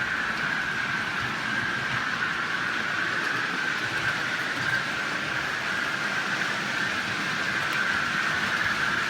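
OO gauge model trains running on the layout: a steady whirr of their small electric motors and wheels on the track, with an even hum that holds one pitch.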